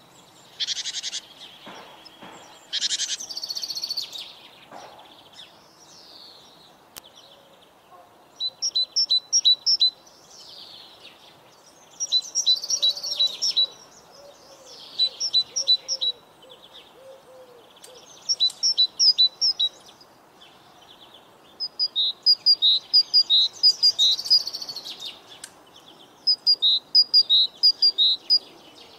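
Songbirds singing. One bird repeats short phrases of quick, sharp, high chirps every two to four seconds, and other high calls come in the first few seconds.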